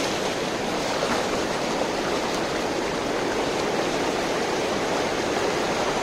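Steady rush of river water: the Tamirabarani pouring over a low check dam.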